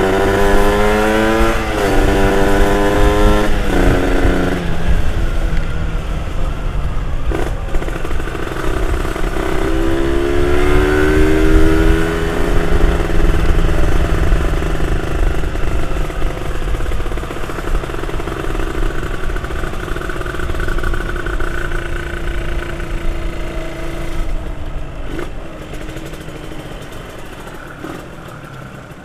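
Motorcycle engine under way, pitch climbing and dropping back at each gear change in the first few seconds and again around ten seconds in, then holding steady at cruising speed and easing off near the end.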